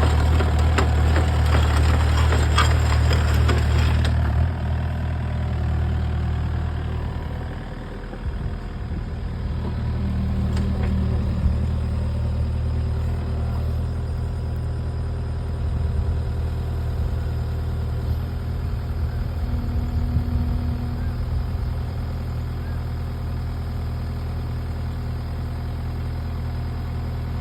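Excavator's diesel engine running, with loud rattling and clatter for the first four seconds, then settling to a steady idle with a brief dip in level around eight seconds.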